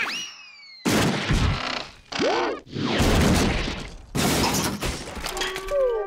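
Cartoon crash sound effects as a heavy boulder smashes down through a wooden floor: a quick whistle glide, then three loud crashes, with a boing-like rising and falling tone between the first two. Cartoon music comes in near the end.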